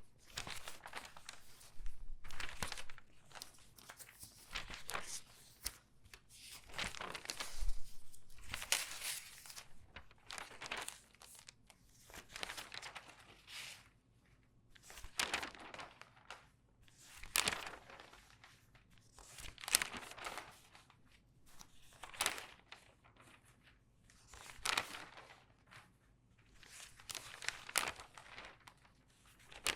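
Pages of an ordinary newspaper being turned quickly by hand, each turn a loud crinkling rustle of newsprint. The turns come unevenly at first, then settle to about one every two and a half seconds.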